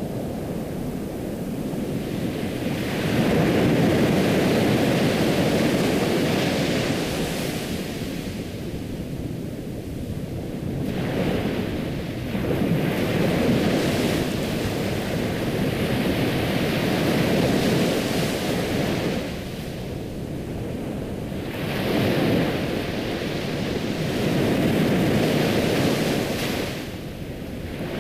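Ocean waves breaking and washing ashore, a steady hiss that swells into a surge every four to six seconds and falls back between them.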